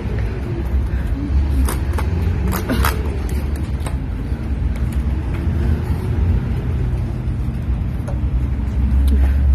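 A loud, steady low rumble, with a few sharp clicks about two to three seconds in.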